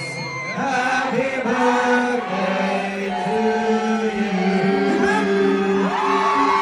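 A group of people singing together in long, drawn-out notes, several voices at once, the pitch stepping to a new note every second or so.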